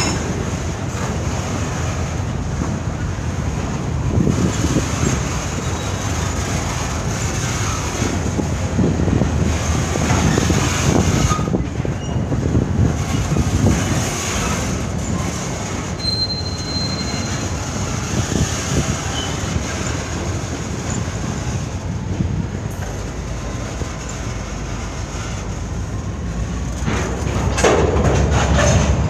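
Norfolk Southern freight train's boxcars rolling past: a steady rumble of steel wheels on rail with a thin, high wheel squeal running over it. It grows louder near the end.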